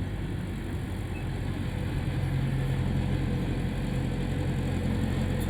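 Heavy earthmoving machine's diesel engine running steadily at a low, even speed, getting a little louder about two seconds in.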